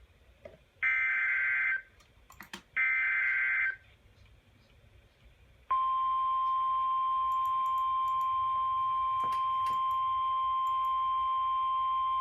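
Emergency Alert System SAME header on a NOAA weather radio: two bursts of digital data noise, each about a second long and a second apart, then after a short pause the 1050 Hz weather radio warning alarm tone starts and holds steady.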